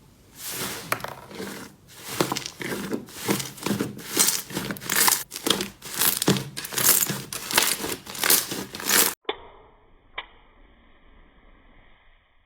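Slime being squeezed and pressed by hand, a quick run of crackly, crinkling squishes. About nine seconds in it cuts off suddenly, leaving a faint steady hiss with a single click.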